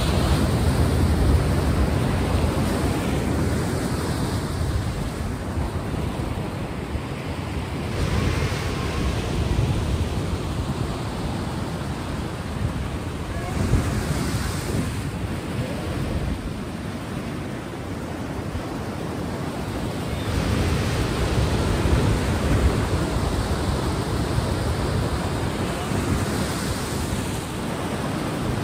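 Ocean waves and surf: a steady wash of sea noise that swells and eases in slow surges.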